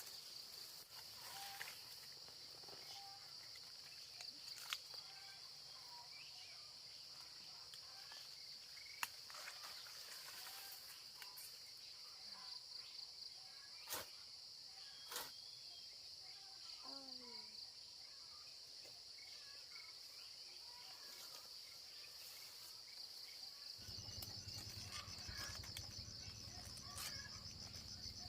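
Insects chirring in a steady, high-pitched drone, with a few faint clicks and knocks scattered through it. Near the end the drone turns pulsing and a low rumble comes in under it.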